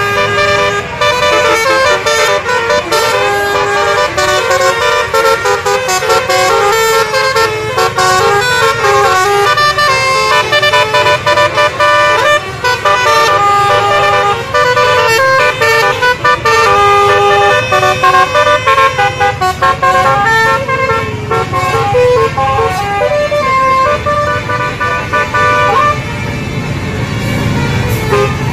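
Bus 'telolet basuri' musical air horns playing a long melody of quickly changing notes, with an engine rumble beneath; the tune breaks off near the end.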